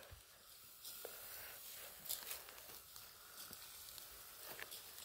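Almost quiet: faint rustling of dry straw and stubble with a few soft clicks, about a second, two seconds and four and a half seconds in.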